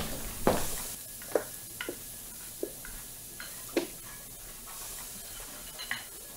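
Footsteps on a hard floor, evenly paced, ending about half a second in as the walker stops at a bar. Then a steady background hiss with a few scattered light clicks and clinks of glassware being handled.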